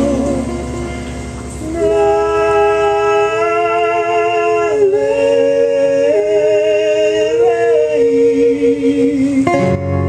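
Men's voices sing the long, held closing notes of a Hawaiian song with vibrato over acoustic guitar. A fuller guitar chord comes in near the end.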